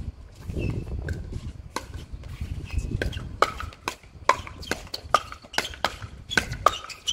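Pickleball paddles striking a plastic pickleball in a rally at the net: sharp pops that come faster from about three seconds in, as the players trade quick volleys. A low rumble runs underneath.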